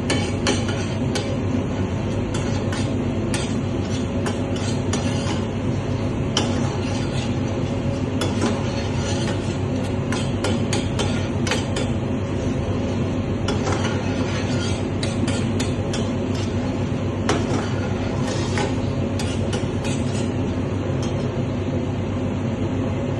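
Steady low kitchen hum under a pan boiling hard on a gas burner, with frequent clicks and scrapes of a metal spoon stirring in a small steel pan.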